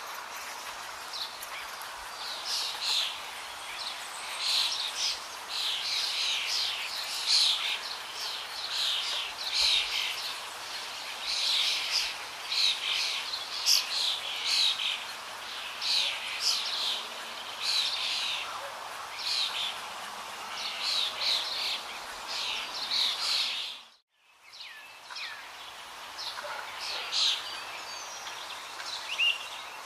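Birds chirping: a dense, continuous stream of short, high calls over a steady background hiss. The sound drops out for a moment about 24 seconds in, then resumes.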